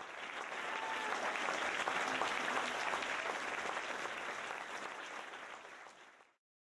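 Audience applauding: dense, steady clapping from many hands, which fades down near the end and stops.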